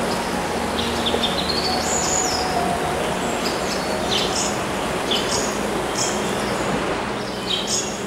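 Small birds chirping and calling again and again over a steady rush of flowing water.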